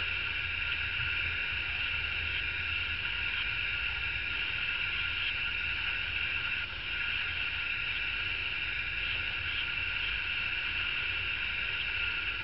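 Steady background hiss in the upper middle range over a low hum, with no distinct events.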